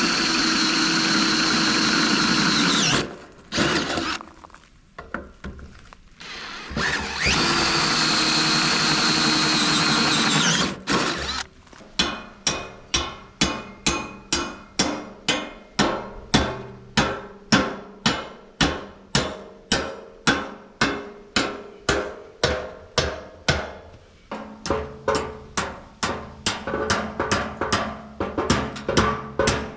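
A power drill runs twice for a few seconds, boring holes for the pergola's ground stakes. It is followed by a long, steady run of hammer blows, about two a second with a short pause, driving the stakes into rocky ground.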